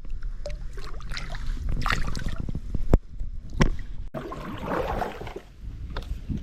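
Creek water splashing and trickling around a kayak, with a couple of sharp knocks about three seconds in and a burst of splashing about a second later.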